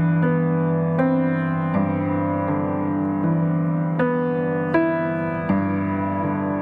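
Background music: an electric piano playing a steady series of sustained chords, the notes changing about every three-quarters of a second.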